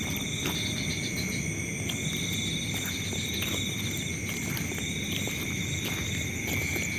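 Night insects, crickets, trilling steadily on several high pitches, one trill breaking off and starting again. A low rumble and a few faint clicks run underneath.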